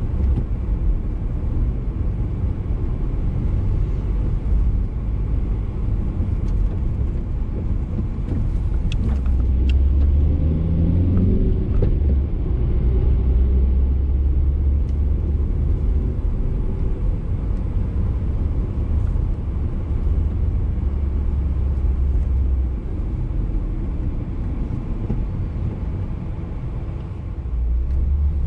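Car engine and road noise heard from inside the cabin while driving: a steady low rumble, with the engine rising in pitch as it accelerates about ten seconds in.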